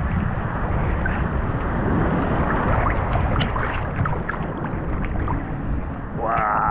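Rough sea water sloshing and splashing around a waterproof GoPro held at the surface, with wind buffeting the microphone. Near the end a voice exclaims briefly.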